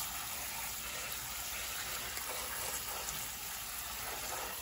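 Kitchen sink's pull-down faucet sprayer running a steady stream of water onto cooked spaghetti in a colander, the water splashing through the pasta into the sink.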